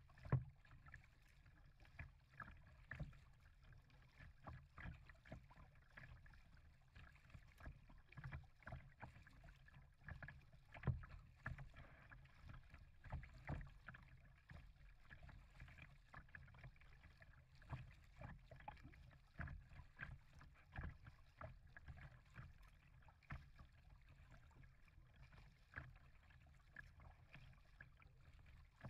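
Faint water splashing and lapping against the hull of an Old Town kayak as it is paddled along, with small irregular knocks and splashes, a few of them louder.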